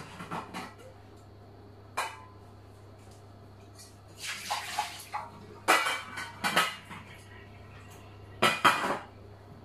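Pots, pans and dishes clattering as they are handled on a kitchen counter: several separate knocks and rattles, loudest near the end, over a steady low hum.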